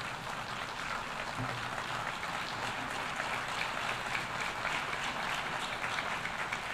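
Delegates applauding steadily in a large assembly hall, a dense even patter of many hands clapping.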